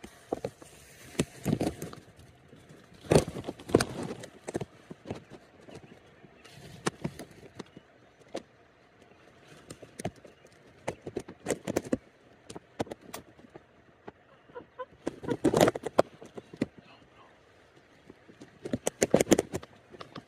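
Irregular clusters of short knocks, clicks and rustles, like people shifting about and handling gear at close range. The loudest groups come about three seconds in, near the middle-late part and shortly before the end.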